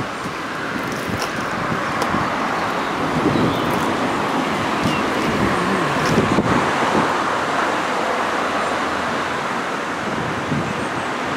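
Road traffic going by: a steady rush of passing cars that swells and eases slowly.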